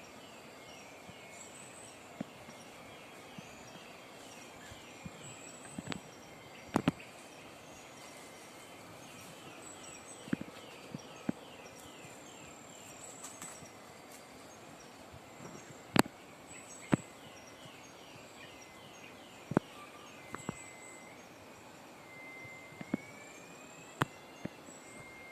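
Forest ambience in which an unidentified animal gives a long series of quick repeated chirping calls, a few each second, later turning into drawn-out whistled calls; a faint high insect tone runs underneath. This is the strange forest sound in question. Scattered sharp clicks sound close by.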